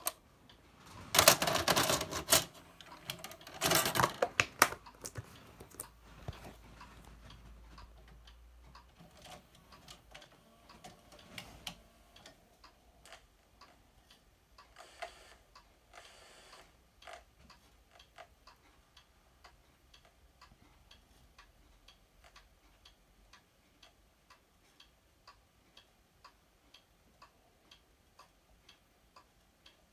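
A VHS cassette being pushed into a JVC video recorder, with clunks and rattles as it goes in and the loading mechanism takes it over the first few seconds. This is followed by faint, steady, regular ticking.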